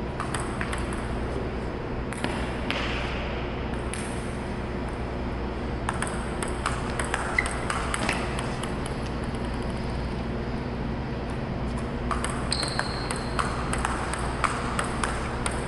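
Table tennis warm-up rally: the plastic ball clicks off paddles and the table in a steady back-and-forth. A steady low hum runs underneath.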